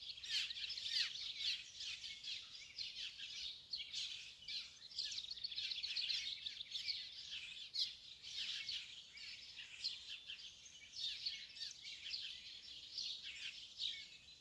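A dense chorus of many small birds chirping and twittering continuously, with quick short calls overlapping one another.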